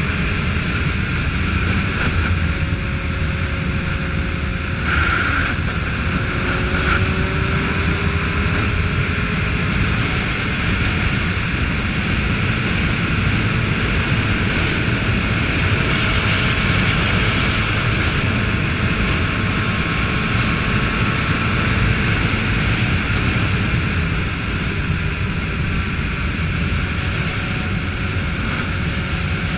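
Motorcycle riding at a steady road speed: the engine runs under a steady rush of wind noise. A faint engine tone drifts a little in pitch now and then.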